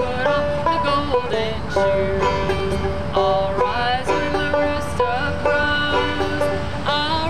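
Banjo music: a banjo picked steadily, with a sustained melody line held and sliding between notes above it.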